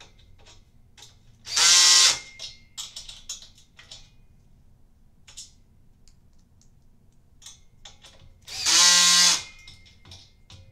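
Cordless drill driving bolts into a steel bed frame in two short runs, each under a second, about seven seconds apart, with small clicks of bolts and handling between them.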